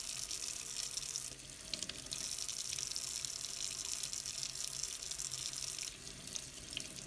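Kitchen tap running in a steady stream into a stainless steel sink. Near the end the stream splashes across a piece of veg-tan leather held under it to wet it.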